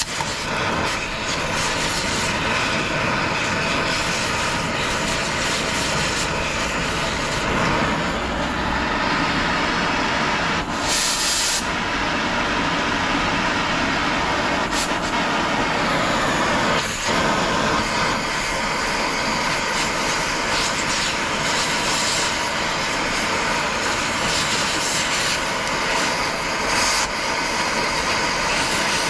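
A machine running steadily and loudly, with a short high hiss about eleven seconds in.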